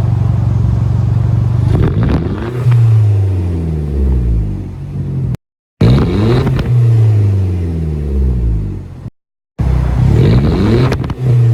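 Audi A1's engine through its exhaust with a louvered-core 'ceja' resonator test-fitted in place of the factory resonator: a steady idle, then three quick revs about four seconds apart, each dropping back down toward idle.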